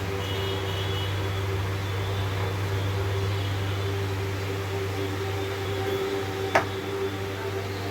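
Steady machine hum of room equipment in a small room, with a single sharp click about six and a half seconds in.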